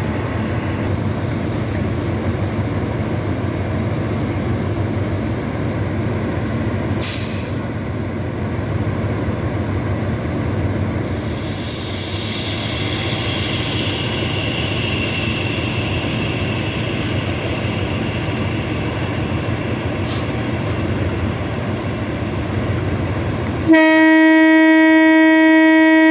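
Diesel locomotive idling with a steady low drone, a short hiss of air about a quarter of the way in, then a loud, steady horn blast starting near the end.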